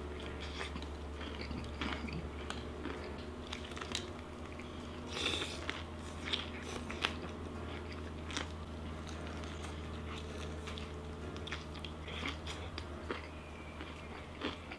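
Close-miked eating of crispy fried chicken from Jollibee: irregular crisp crunches of the breading and wet chewing, thickest in the middle, over a steady low hum.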